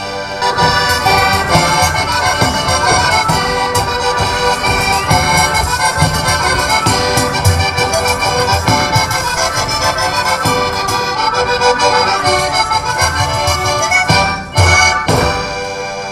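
Accordion playing a traditional folk dance tune, melody over pulsing bass notes, breaking off briefly near the end.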